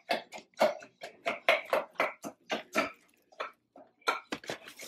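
Small dog yapping in a quick run of short, sharp barks, about four a second.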